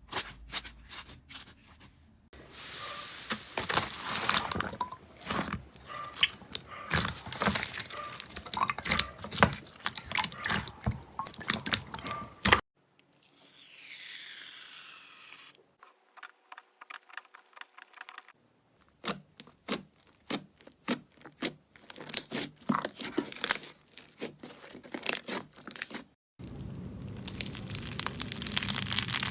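Hands squeezing and poking crunchy slime: dense runs of crackles and pops, in several short clips cut one after another, with a softer, smoother squishing stretch near the middle.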